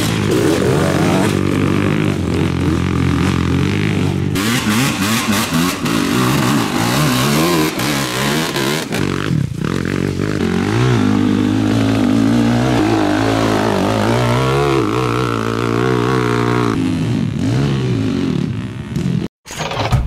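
ATV engines running and revving, their pitch rising and falling, heard in a string of short cuts with a brief dropout near the end.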